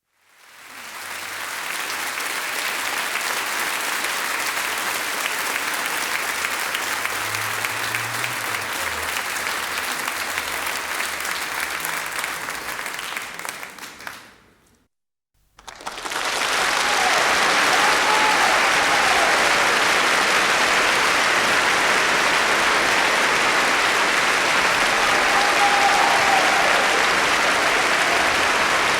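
Crowd applause, many hands clapping together. The first applause fades in, then fades out about halfway through, and after a second of silence a second, louder round of applause starts, with a few brief calls rising above the clapping.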